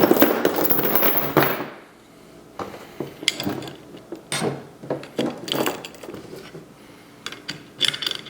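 Chain and steel target hardware rattling and clinking as they are handled: a loud continuous rattle for the first second and a half, then scattered short clinks and knocks.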